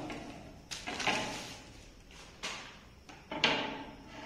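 Cloth rustling and flapping as a full-sleeve t-shirt is shaken out and spread flat, in three sudden rustles about a second apart, the last the loudest.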